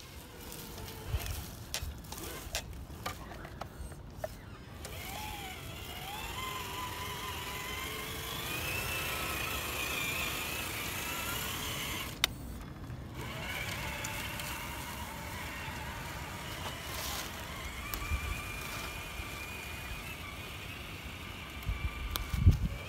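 Whine of a Traxxas TRX-4 RC crawler's electric motor and gears, wavering up and down in pitch with the throttle as it crawls. Scattered clicks come in the first few seconds, and there is a loud low thump near the end.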